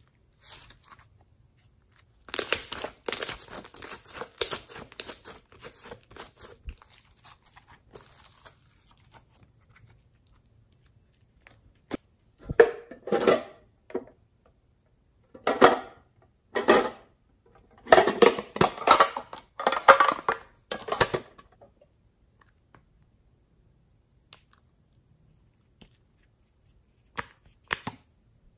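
Glossy slime being stretched and pressed by hand, making sticky crackling and popping in several bursts. The longest burst runs from about two to nine seconds in, and a few faint clicks come near the end.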